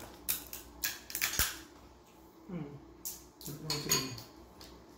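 Sharp clicks and cracks of seafood shells being snapped or cut open at the table: several in the first second and a half, a few more near four seconds.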